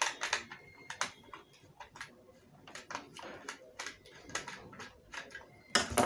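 Irregular clicks and ticks of a screwdriver undoing the screws on a plastic hair dryer housing, with a louder knock near the end.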